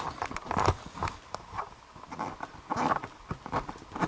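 Irregular light clicks, taps and rattles of a lock and small tools being handled and set down on a work surface.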